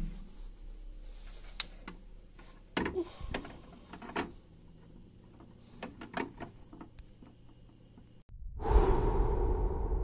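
Plastic mesh air filter of a SANG PD12-DAR dehumidifier clicking and knocking as it is slid into its slot in the unit's back, over a low steady hum. About eight seconds in it cuts off abruptly to a loud rushing noise with a deep rumble.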